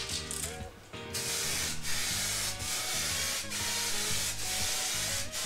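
Aerosol spray can of clear lacquer hissing in repeated spray passes starting about a second in, each broken by a short gap. A light first coat of clear is going on over fresh paint.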